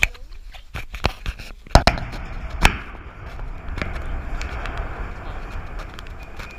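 A run of sharp knocks and rattles close to the microphone, as a woolly monkey at the chain-link fence handles the camera and wire, loudest in the first three seconds. After that comes a steadier background hiss with a few faint clicks.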